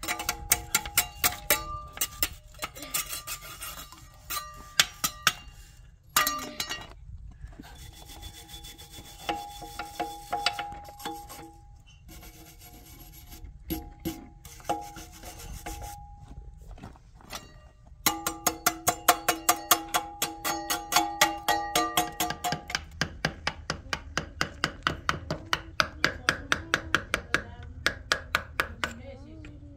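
Hand hammer blows chipping at cement around a steel window frame, a rapid run of sharp knocks with a metallic ring, in spells with short pauses and quickening to about four blows a second in the second half.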